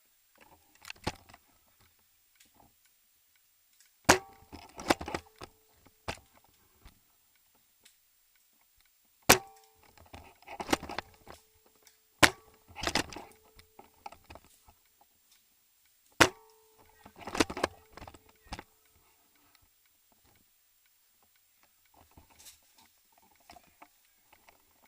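Airsoft gun firing four single shots a few seconds apart. Each is a sharp crack with a brief ringing tone, followed by a rattle of clicks.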